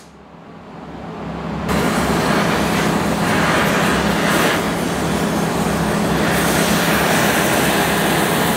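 Gas torch flame hissing loudly and steadily, starting abruptly a little under two seconds in, as it heats a steel rod for wrapping into a punch handle.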